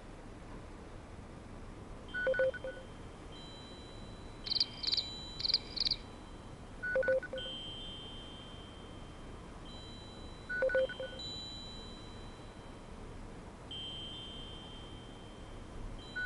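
Short electronic blips about every four seconds, with a quick run of four high chirps about four seconds in. Faint steady high tones come and go over a low hiss.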